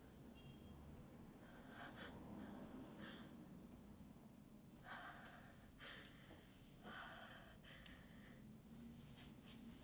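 Faint, heavy breathing and gasps from a person, several breaths a second or two apart against a quiet room hum.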